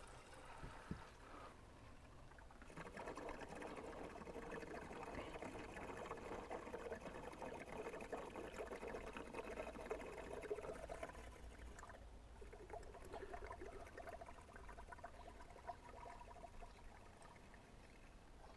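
Propylene glycol coolant pouring from a jug through a flexible fill spout into a skid steer's coolant tank, a steady trickle that is stronger for the first half and then softer.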